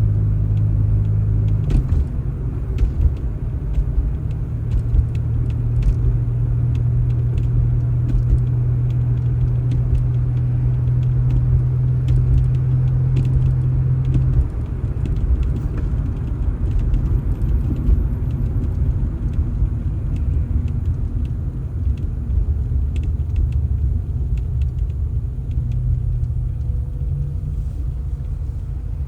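Motor vehicle engine running steadily with a low rumble, its hum shifting in pitch about two seconds in and again about halfway through.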